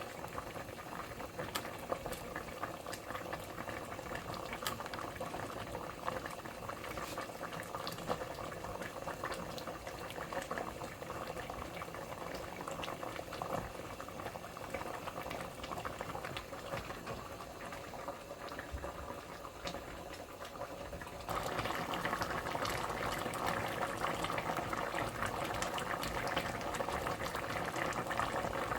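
A pot of Jamaican-style cow foot stew bubbling as it cooks: a steady simmer full of small pops, which gets suddenly louder about two-thirds of the way through.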